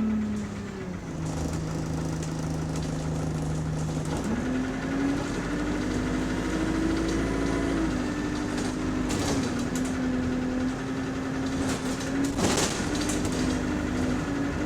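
City bus engine and drivetrain running while the bus is under way, heard from on board: a steady pitched drone that drops about a second in, rises again after about four seconds and then holds with small shifts in pitch. One sharp thump comes late on.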